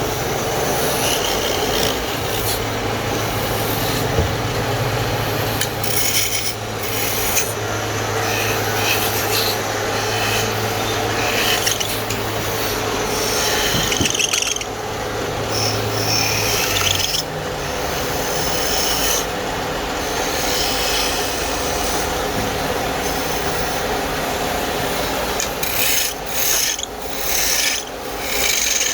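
A hand tool scraping and rasping across wood in repeated strokes. A steady low hum runs beneath it and stops a little past halfway.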